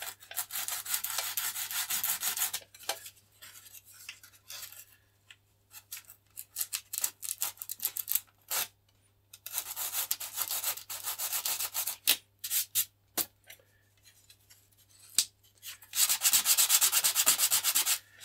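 Hand sanding with a small piece of sandpaper worked in quick short strokes inside a slot cut in a model glider wing, roughing it out to take the spar. It comes in three main spells, at the start, around the middle and near the end, with a few stray strokes and short pauses between.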